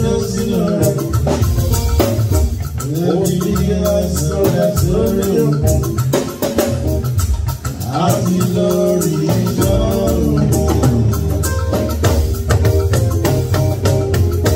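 Live band music with a steady beat: bass and percussion under a melodic line.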